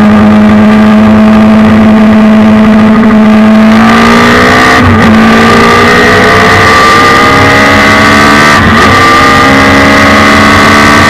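Suzuki Hayabusa 1300 inline-four motorcycle engine in a race car, running hard through an Akrapovic exhaust, heard loud from the cockpit. Its pitch climbs slowly, with two brief dips in pitch about five and nine seconds in.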